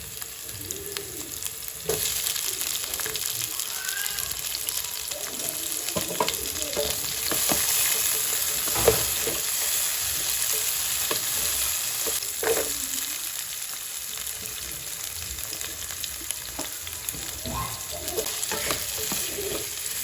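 Sliced onion and carrot sizzling in hot oil in a pan while being stirred, with a utensil clicking and scraping against the pan now and then. The sizzle gets louder about two seconds in.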